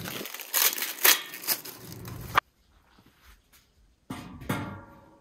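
Plastic stretch wrap around steel shelf bars crinkling and rustling under a hand, cutting off abruptly about two seconds in. Near the end, a short knock with a brief ring follows.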